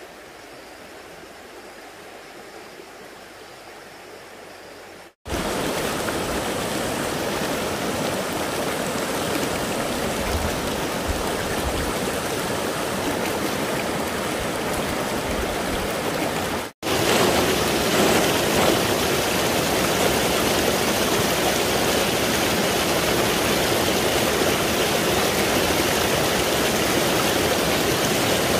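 Stream water rushing steadily. The sound cuts abruptly twice, about five seconds in and again past the middle, and comes back louder and closer each time.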